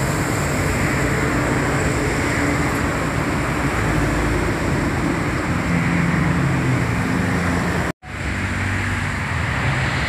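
Road traffic noise on a wet road: engines running and tyres hissing as a coach bus pulls away. The sound drops out completely for a moment about eight seconds in.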